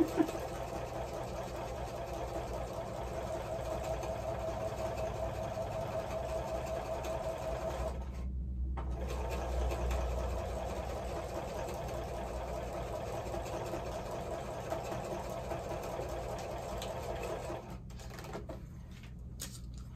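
Sewing machine running steadily, stitching a seam. It runs in two stretches with a short pause about eight seconds in, and stops a couple of seconds before the end.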